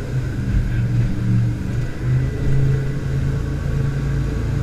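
Jet boat engine running under way: a steady low hum that swells and eases slightly.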